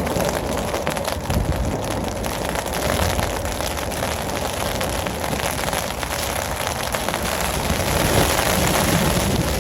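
Steady rain falling, a dense patter of many individual drops.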